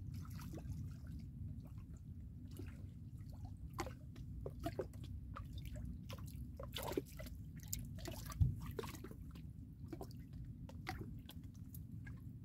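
Small water splashes and drips at the surface as a hooked piau is drawn in to hand, with many short irregular ticks and one sharper knock about eight and a half seconds in, over a steady low rumble.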